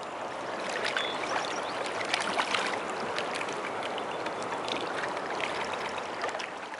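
River water rushing, with many small sharp splashes over it.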